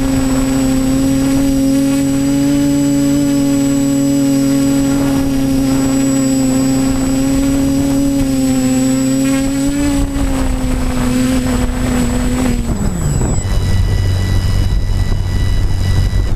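TBS Discovery Pro quadcopter's motors and propellers buzzing steadily in flight, heard from its on-board camera. About twelve seconds in, the pitch drops sharply as the motors throttle down to land, leaving a lower steady hum.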